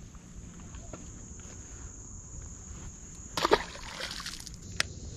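A released largemouth bass splashing back into the water once, about three and a half seconds in, followed a second later by a single sharp click, over a steady high buzz of crickets.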